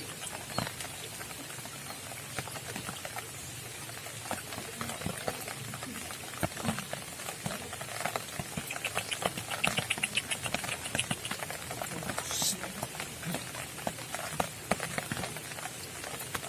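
Light rain pattering, with many irregular small clicks and taps. About halfway through, a rapid chirping trill runs for about two seconds.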